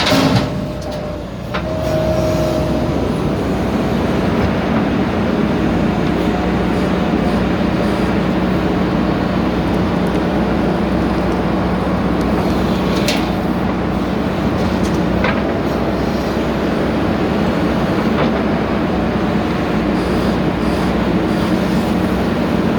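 Backhoe loader's diesel engine running steadily with a low hum, dipping briefly about a second in, with a couple of sharp metallic knocks about halfway through.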